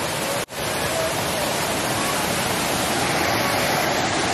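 Rushing water of a waterfall, a loud, steady noise, cut off for an instant about half a second in.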